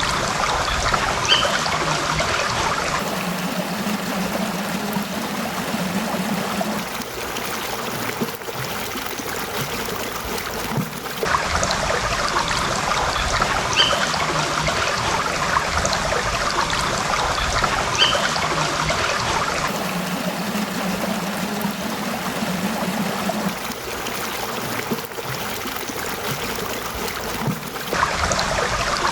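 Small stream trickling and babbling steadily. The character of the water changes abruptly about every eight seconds, as one stream recording gives way to another.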